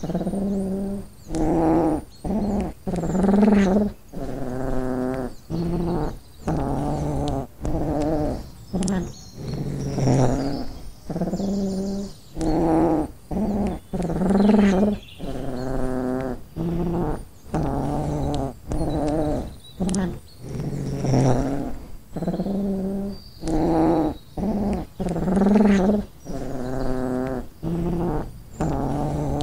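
A cat growling while wrestling with another cat, in low rough bouts of about half a second to a second each, roughly one a second, with short breaths between.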